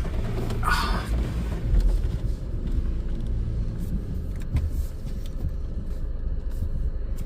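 Ryko Softgloss car wash running, heard from inside the car as a steady low rumble, with a short hiss of spray about a second in and a few faint clicks.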